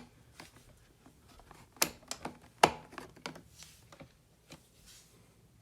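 A few sharp clicks and taps from a new smoke-alarm mounting bracket being handled, the two loudest just under two seconds in and about a second later.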